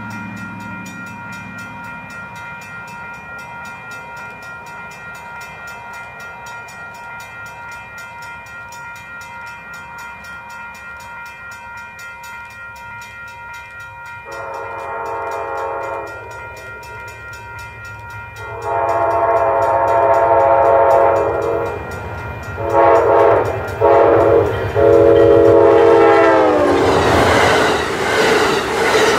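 Locomotive horn sounding a series of long and short blasts, the grade-crossing signal of an approaching train. On the last blast the pitch drops sharply as the locomotive passes, and the loud rush of the passing train follows. A steady low rumble and a faint high steady ringing run underneath.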